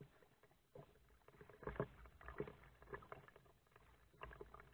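Kayak paddle working the water: irregular splashes and drips from the blades, with a few sharper knocks, loudest about two seconds in.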